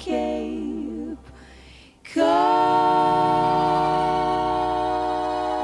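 Unaccompanied singing: a sung note with wavering vibrato dies away, and about two seconds in a single long note starts and is held.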